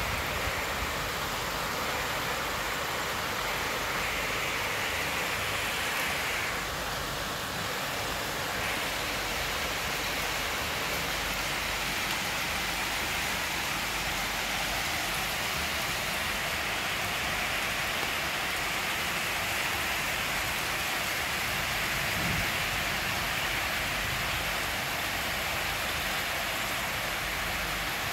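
Steady rain falling on rooftops and a wet street, an even hiss that does not let up.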